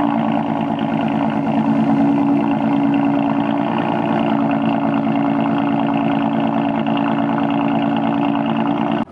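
Ford Mustang V6 engine idling steadily on a cold start through its aftermarket exhaust, catalytic converters still fitted.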